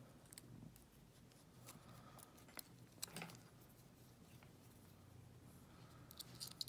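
Faint, scattered metallic clicks and scrapes of a lock pick and tension wrench working in a brass padlock's keyway, with a short cluster of sharper clicks near the end.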